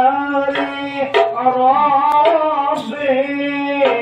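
Men singing a devotional chant together in the Ishari hadrah style, holding long notes that slide between pitches, with a few sharp strokes on large terbang frame drums.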